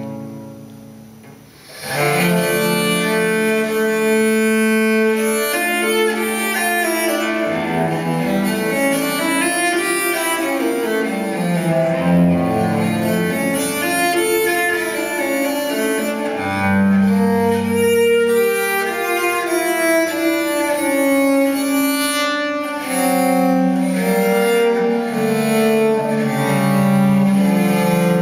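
Recorded music played back through Infinity Alpha 30 hi-fi loudspeakers. The previous piece fades out, and about two seconds in, bowed-string music with cello takes over.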